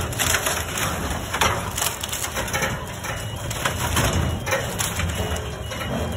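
Wooden pallets cracking and splintering in a continuous crackle as a truck-mounted compactor's hydraulic plate presses them down into a dumpster, with the machine running underneath.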